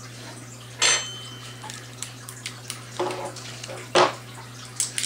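Clinks and knocks of a glass hot sauce bottle and a small metal tool being handled at a table: a sharp clink with a short ringing tone about a second in, light crackly handling sounds, and a loud knock near four seconds as something is set down. A steady low hum runs underneath.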